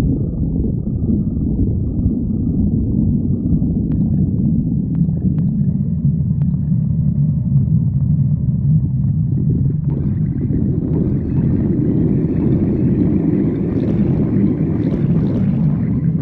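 A person's stomach growling: a loud, continuous low rumble that grows brighter about ten seconds in.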